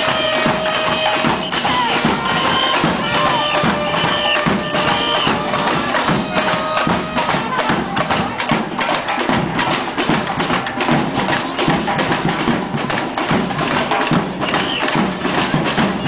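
Brazilian carnival street band playing: big surdo bass drums and other percussion drive a dense, steady samba rhythm, while horns play held melody notes over it for the first half and again near the end.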